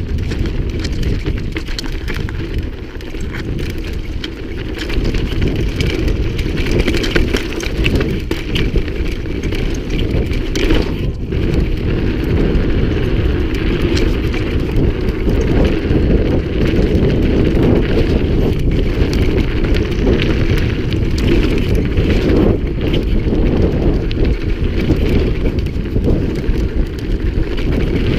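Mountain bike riding fast down a rough dirt and stone trail: tyres rolling over the loose surface and the bike rattling over bumps, with wind rushing over the camera microphone. Steady and loud, a little louder from about five seconds in.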